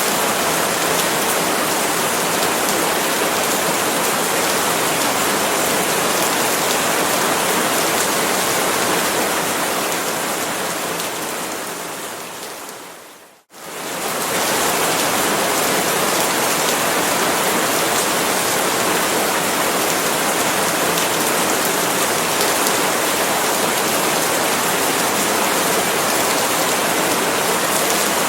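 Steady rain falling on palm leaves, a dense even hiss. Around ten seconds in it fades gradually away to silence about halfway through, then swells back to full strength within a second.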